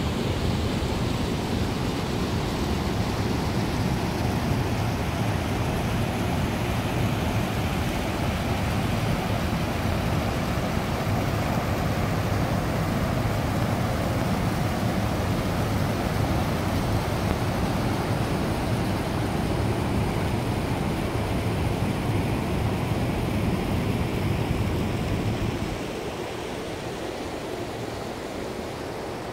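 Steady rushing roar of Nevada Fall's falling water, with a heavy low rumble underneath that drops away about 26 seconds in, leaving a quieter hiss.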